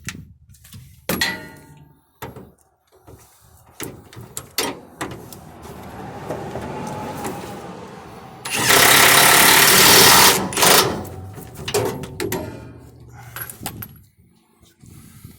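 Hand tools clinking and knocking on metal, then an impact wrench runs for about two seconds on a rear shock absorber mounting nut. The impact wrench is the loudest sound.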